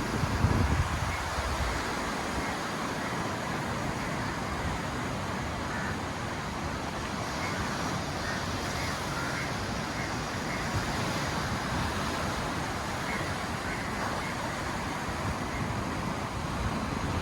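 Steady rush of ocean surf, with wind buffeting the microphone in the first second or so.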